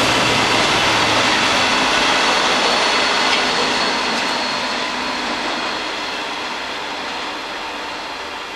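Self-propelled track tamping machine running past on the rails: a loud, steady rushing noise that fades away from about three seconds in as the machine moves off.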